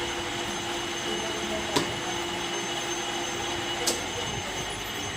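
Lathe machine running with a steady mechanical hum and high whine. Two sharp clicks come about two seconds apart, and one hum tone stops at the second click.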